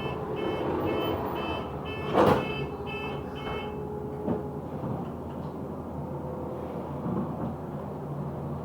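Bus door warning beeps, short and high, about two a second for the first few seconds, with the doors shutting in one loud bang about two seconds in and a smaller knock a little later, over the steady low rumble of the bus.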